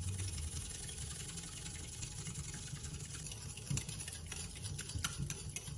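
Small wire whisk stirring salt and sugar into water and vinegar in a glass bowl, with light irregular ticks of the whisk against the glass, over a steady low hum. The brine is being mixed until the salt and sugar dissolve.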